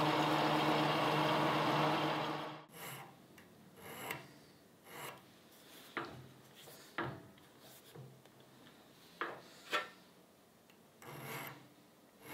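A lathe spins a small steel pin while a Scotch-Brite pad is pressed against it: steady rubbing over the motor hum, which cuts off suddenly about three seconds in. Then come scattered light clicks and knocks from handling the collet chuck, and a short rasp near the end as a file is set against the pin.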